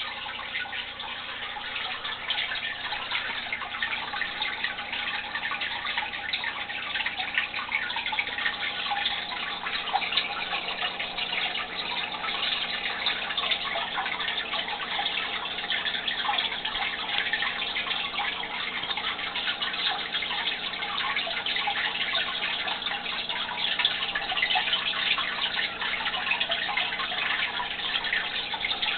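Aquarium water trickling and splashing steadily, a continuous fine crackle of falling water at the tank's surface, the sound of the filter's return flow.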